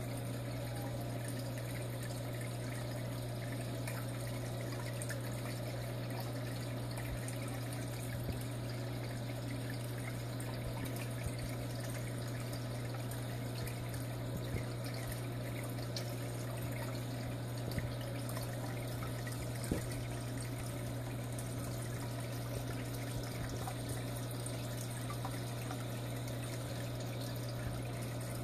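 Aquarium filter running: a steady trickle of moving water over a constant low hum, with a few faint clicks.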